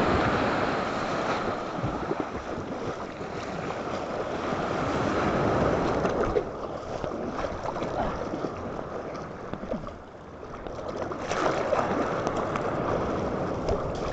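Sea waves breaking and washing up on a beach, the surf swelling and fading every few seconds.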